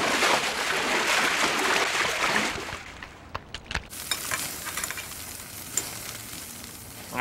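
A loud sizzling hiss for about two and a half seconds, then a few sharp clicks and a quieter crackle with small ticks.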